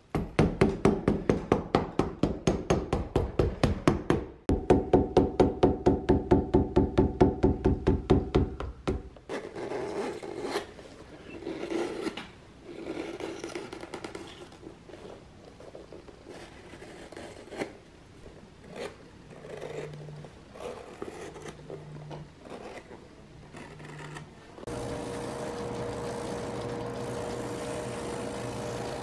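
Steel cobbler's hammer tapping a leather sole in fast, even strikes, about five a second, in two runs. Then a knife pares and scrapes along the edge of the new leather sole, in short strokes with pauses. Near the end a shoe finishing machine starts and runs steadily with a constant hum as its sanding wheel spins.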